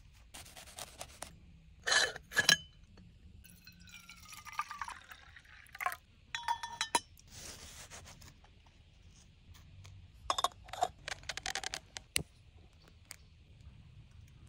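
Small metal items clinking and scraping as camp coffee gear, including a stainless steel moka pot, is handled. Two loud ringing clinks come about two seconds in, a scraping sound falls in pitch shortly after, and clusters of small clicks and knocks follow later.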